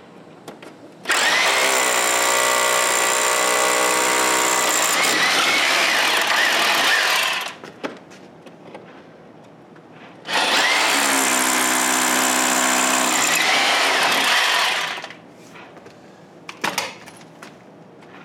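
Corded electric drill run twice into the wall, first for about six seconds and then for about five, each time rising to speed and slowing as it stops. A couple of short knocks follow near the end.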